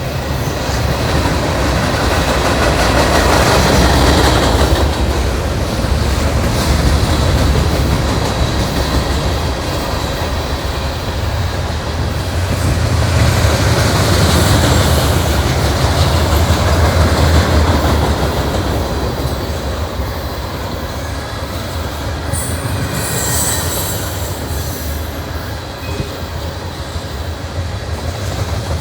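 Norfolk Southern freight train rolling steadily past, its cars' wheels clacking over the rail with intermittent high wheel squeal, loudest for a moment a little before the end.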